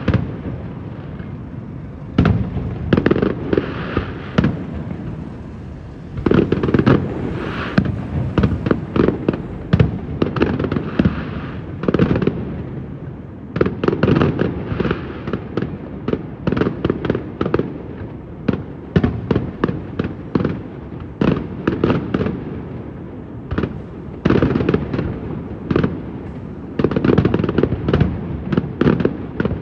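Fireworks display: rapid volleys of shell bursts and crackling bangs, with rumbling echo between them and brief lulls between the volleys.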